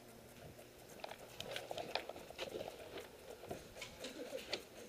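Quiet, irregular crunching and small clicks of a person moving: footsteps on dry grass and dirt, with gear rustling.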